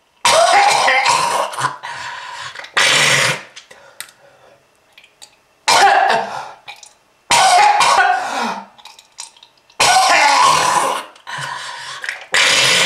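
A person coughing loudly in repeated fits, several harsh bursts with short pauses between them, mixed with throat clearing.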